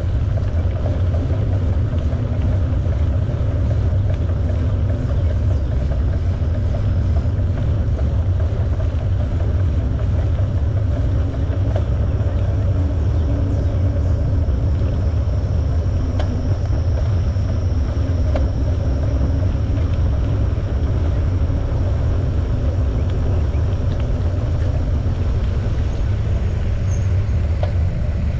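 Steady low rumble of wind buffeting the microphone of a camera on a moving bicycle, mixed with the rolling noise of the tyres on the trail.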